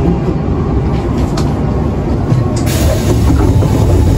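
Cabin running noise of a Nankai 1000 series electric train: a steady low rumble from the wheels and running gear as it pulls into a station, with a couple of light clicks and a hiss that sets in a little past the middle.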